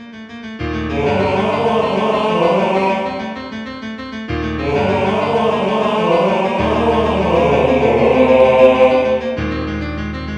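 Background music: a choir singing long sustained chords in slow swelling phrases, with the chord changing every few seconds.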